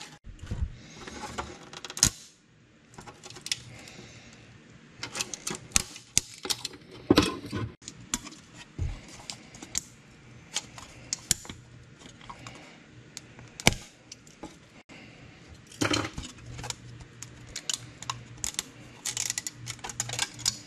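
Bridge support material being snapped and peeled off 3D-printed PLA parts by hand: irregular runs of small, sharp plastic clicks and cracks.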